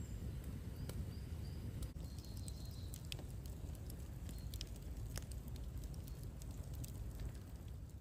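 Wood campfire crackling, with scattered sharp pops over a low steady rumble.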